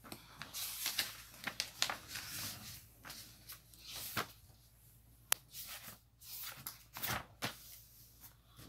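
Pages of a paper workbook being turned and handled: papery rustling and flapping, busiest in the first couple of seconds, with a few sharp clicks.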